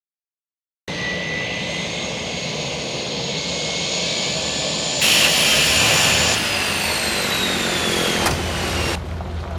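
Aircraft engine running, a steady loud drone with high whining tones, starting abruptly about a second in. It changes sharply about halfway through, and a whine falls in pitch near the end.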